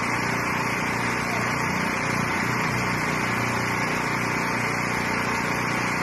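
A small engine running steadily, with indistinct voices.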